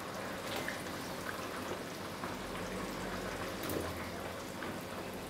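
Tomato-sauce beef stew simmering in a wok, a steady bubbling hiss, with a few small splashes as potato chunks are dropped in.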